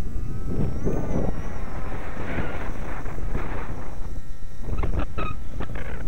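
Strong wind buffeting the microphone over the whine of a small RC electric plane's motor and propeller, its pitch rising and falling with the throttle. A few sharp clicks come about five seconds in.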